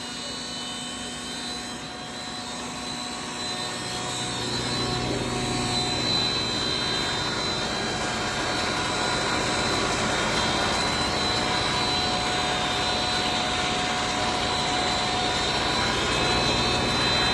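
Sawdust pulveriser with its blower running: a steady rushing whir with high whining tones, growing louder about four seconds in and then holding steady.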